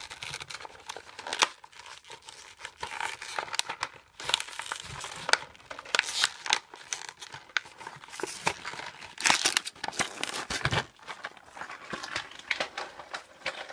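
A cardboard-backed plastic blister pack of toy cars being crinkled and torn open by hand: irregular crackling of plastic and tearing of cardboard.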